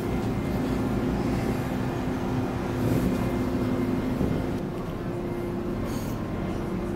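Onboard sound of a Scania OmniCity double-decker bus under way: the diesel engine's steady drone and the road rumble. The sound eases slightly about two-thirds of the way through.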